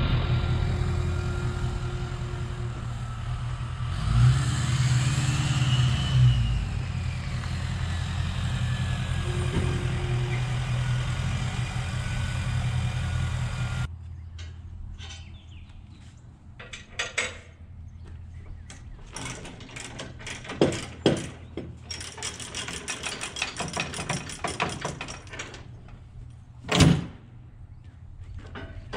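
A diesel engine idling, revving up and back down about four seconds in, then cutting off suddenly about halfway through. After it come a run of sharp metal clanks and rattles from work at the equipment trailer, the loudest near the end.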